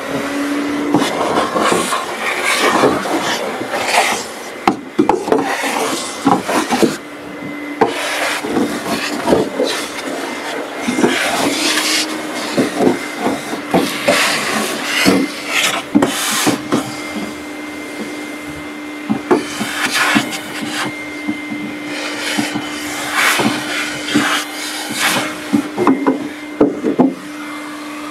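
Craftsman shop vac running with a steady hum while its hose nozzle scrapes and clatters over the riveted aluminum hull floor, sucking up mouse-nest debris.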